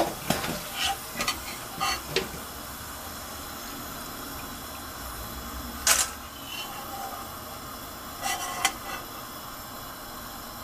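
Potato chips frying in shallow oil in a steel kadai: a faint, steady sizzle that has died down, the sign that the moisture is cooked out and the chips are crisp and ready to lift out. A steel slotted skimmer scrapes and clinks against the pan several times as the chips are stirred and scooped out.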